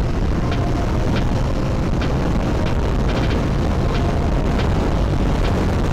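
Motorcycle running steadily at road speed, with wind rushing over the microphone.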